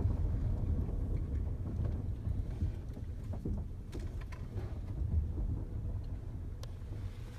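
Low, steady vehicle rumble that slowly fades, with a few faint knocks.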